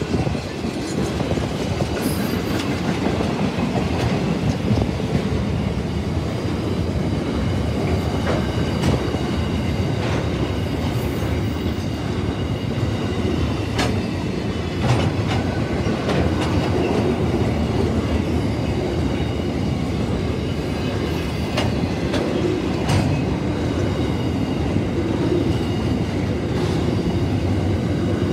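Freight train's loaded container wagons rolling past at steady speed: a continuous rumble of wheels on rail, with sharp clicks scattered through it as the wheels cross rail joints.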